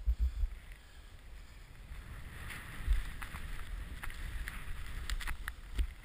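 Powder snow hissing and scraping under a rider descending through trees. It builds about two seconds in, with short scratchy swishes, and wind buffets the microphone at first.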